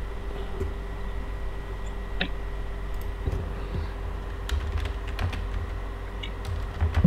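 Typing on a computer keyboard: irregular, scattered key clicks over a steady low hum.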